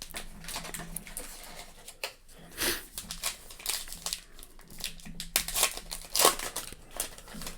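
A trading card pack wrapper being torn open and crinkled by hand: irregular rustling with several sharper crackles.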